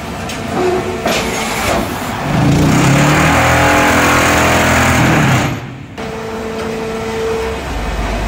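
QGM ZN1500C concrete block making machine running a moulding cycle. About two seconds in comes a loud vibrating clatter, the mould being vibrated to compact the concrete with the tamper head down; it lasts about three seconds and cuts off sharply. A steady whine and then a low hum follow.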